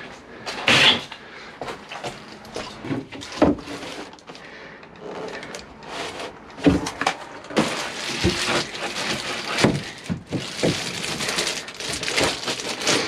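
Plywood floor boards being handled and laid in a small van's load area: a series of sharp knocks and thuds, then, over the second half, longer scraping and rustling as the boards are shifted into place over the floor insulation.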